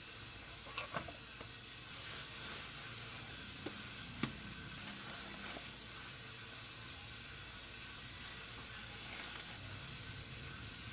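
Food sizzling in a frying pan: a steady hiss that swells louder for about a second, two seconds in, with a few light clicks.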